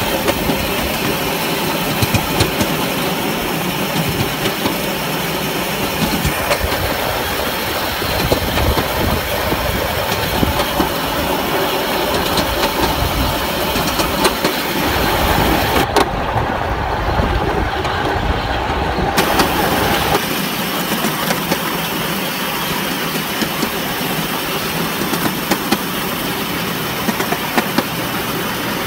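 7¼-inch gauge miniature locomotive, a model of the Midland Railway E class shunter, running along the track with a steady running noise and frequent irregular clicks of the wheels on the rails. The high hiss dulls for a few seconds midway, then returns.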